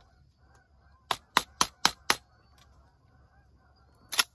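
A large flock of geese honking in the distance as a continuous chorus. Over it, a quick run of five sharp clicks about a second in and one more near the end, from a shotgun being handled.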